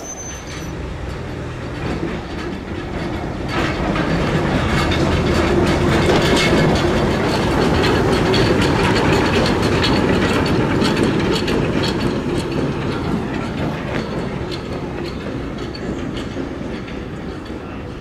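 Class 03 diesel shunter moving slowly along the station track: its Gardner diesel engine running and its wheels clicking over the rail joints. The sound swells from about three seconds in and eases off toward the end.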